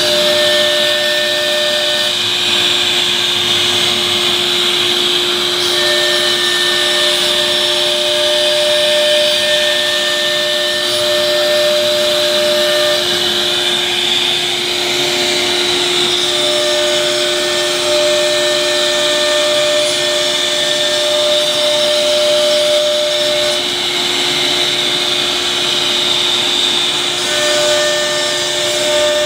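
CNC router running with its spindle and dust-extraction hose drawing air: a steady hum under a constant airy hiss, with a higher whine that comes and goes in stretches of several seconds as the machine works.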